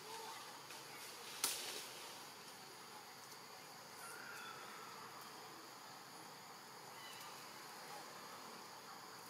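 A steady, high-pitched chorus of forest insects, with one sharp click about a second and a half in.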